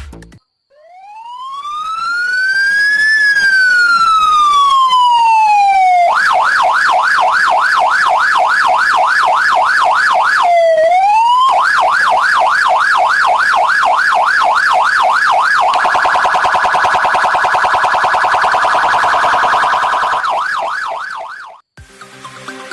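Electronic police-style siren from a converted speaker, cycling through its tones. It gives one slow wail rising then falling, then a fast yelp of about three sweeps a second, then a rapid warble, and cuts off suddenly near the end.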